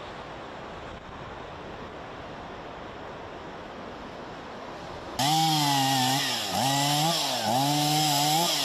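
Steady wind noise, then about five seconds in a two-stroke chainsaw starts, loud, cutting through a fallen tree trunk. Its engine pitch dips under load and recovers about every three-quarters of a second.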